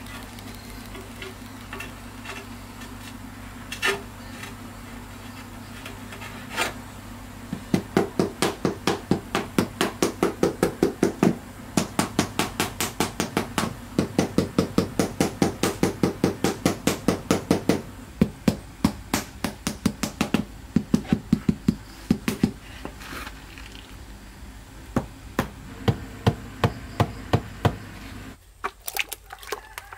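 Rubber mallet tapping ceramic floor tiles down into wet cement: a few single knocks, then quick runs of about four taps a second, then slower, scattered taps. A steady low hum sits underneath.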